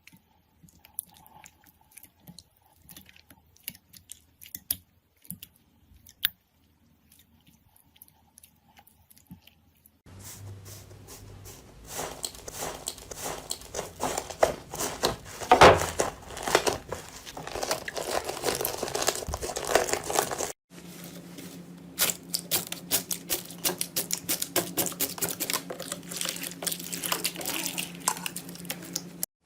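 Slime being squeezed, poked and stretched by hand, giving rapid small crackling clicks and pops. The clicks are sparse and soft for about the first ten seconds, then turn dense and louder. There is a brief break about two-thirds of the way through, and dense crackling follows it.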